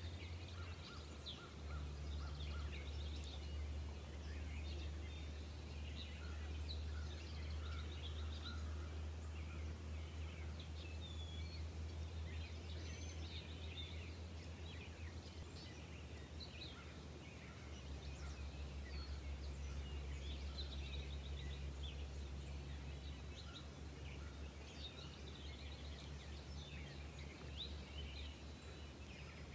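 Outdoor ambience of many small birds chirping and calling, with short overlapping calls throughout, over a steady low hum.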